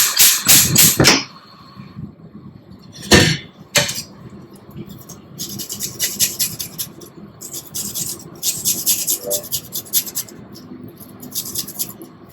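Pots and metal kitchen utensils clattering: a quick run of clatters at the start, two sharp knocks a little later, then a long stretch of fast, repeated rattling strokes.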